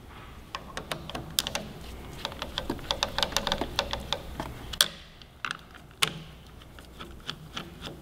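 Irregular small clicks and ticks of a screwdriver working the screws of a motorcycle's plastic throttle housing to loosen them, with two sharper clicks about five and six seconds in.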